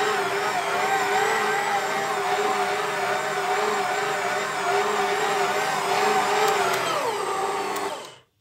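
Karaca Mastermaid Chef Pro 1750 W stand mixer running with its dough hook kneading mantı dough: a steady motor whine whose pitch wobbles in a regular rhythm. The pitch dips briefly near the end, then the sound cuts off.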